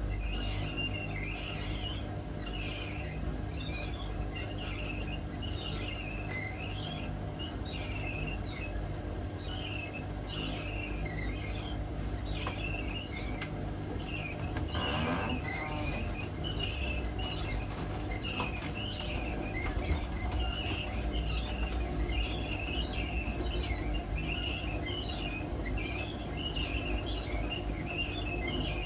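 Hotpoint WMA32 washing machine drum turning over a steady low rumble, with repeated high squeaks about once or twice a second: the drum rubbing on the bearing seal, a sign of worn-out drum bearings.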